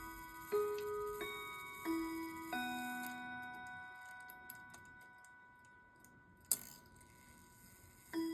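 Urgos triple-chime clock movement playing the close of a chime phrase: four struck notes about two-thirds of a second apart, falling in pitch, each left ringing. As they fade, the movement ticks faintly, a sharp click sounds about six and a half seconds in, and the next chime phrase begins just at the end.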